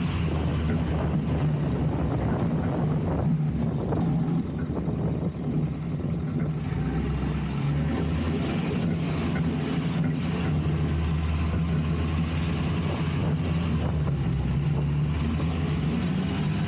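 Off-road truck's engine running steadily while the truck drives along a dirt track, picked up by a camera mounted under the chassis, with a brief dip in loudness about four to six seconds in.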